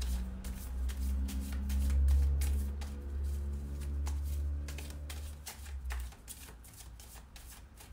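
A deck of tarot cards being shuffled by hand: a quick run of soft card clicks and riffles. Underneath is a low steady hum that drops away about six seconds in.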